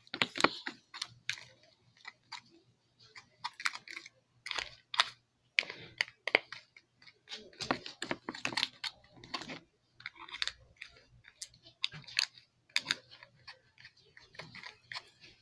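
Slime mixture with shaving cream and glitter being stirred in a container, giving an irregular run of sticky clicks and smacks.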